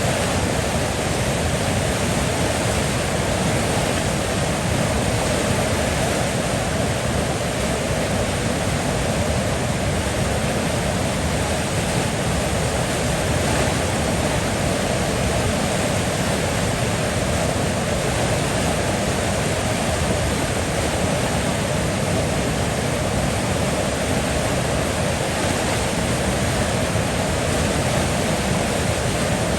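River water flowing, a steady, even rush that doesn't change.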